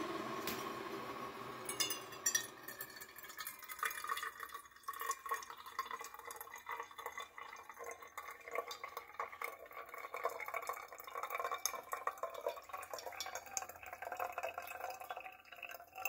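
Hot water poured from a gooseneck kettle onto a paper filter in a V60 pour-over dripper, pre-soaking the filter: a steady pouring hiss for the first few seconds gives way to light, irregular dripping and pattering into the cup below.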